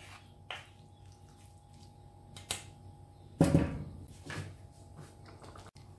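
Kitchen utensil clatter: a spatula stirring in a cooking pan and being set down on a plate, a few light clicks and one louder thump about three and a half seconds in, over a faint steady hum.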